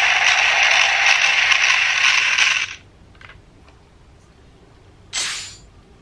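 DX Drill Crusher toy sounding off as it is activated: a loud, harsh whirring noise that cuts off suddenly a little under three seconds in. A short burst of noise follows about five seconds in.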